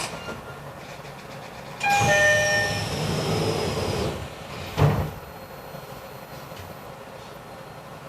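E129-series electric train standing at a station: about two seconds in, a chime of several steady tones with a hiss of air lasting about two seconds, then a single thud about five seconds in, typical of the train's doors being worked.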